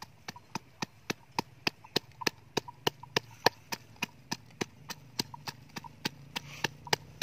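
Wooden pestle pounding garlic cloves and red chilies in a clay mortar: sharp, evenly spaced knocks, about three a second.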